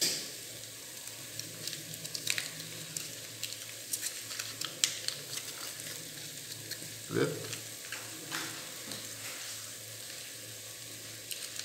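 Spice masala frying in oil in an aluminium pot, sizzling softly with scattered small crackles and a slightly louder burst about seven seconds in, over a steady low hum.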